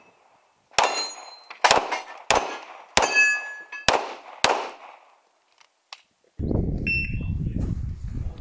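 Rapid pistol fire, about seven shots in four seconds, two of them almost together, with steel targets ringing after several of the hits.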